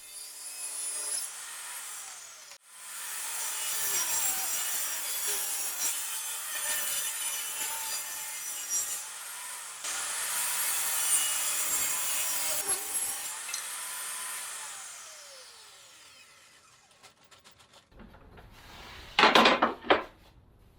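A saw cutting through wood in a long, continuous cut that dies away about sixteen seconds in. Near the end there are a couple of sharp, loud knocks.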